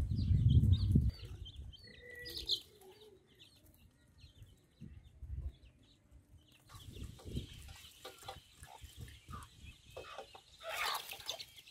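Young chicks peeping and chickens clucking, many short high calls scattered through the first half. A low rumble fills the first second, and faint short clicks and rustles come in the second half.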